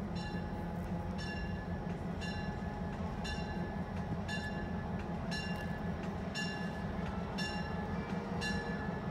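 Diesel locomotive rolling slowly into a station with a steady low engine rumble. A bell rings about once a second throughout.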